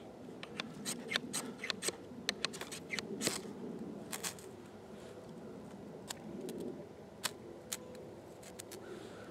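Knife blade scraping against a small stick in quick, short strokes. The strokes come thick and fast for the first three seconds or so, then grow fewer and farther apart.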